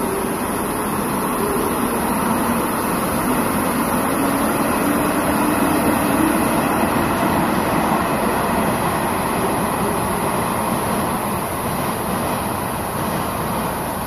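Steady vehicle noise at a station-front taxi rotary, from running engines and traffic. A low engine hum sags slightly in pitch during the first half, and the sound eases a little toward the end.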